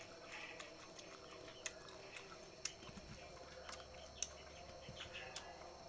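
Faint, sharp clicks, about one a second, as the scaly skin of a salak (snake fruit) is cracked and peeled apart by hand.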